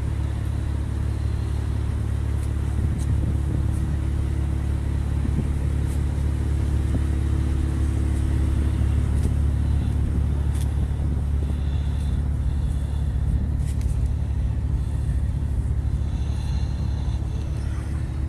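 A ship's engine running steadily under way: a loud, low drone with a steady hum.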